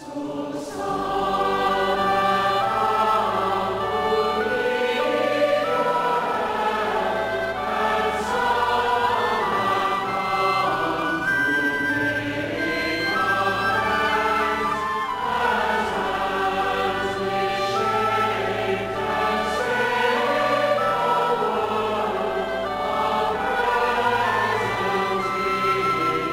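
Church congregation singing a hymn in chorus.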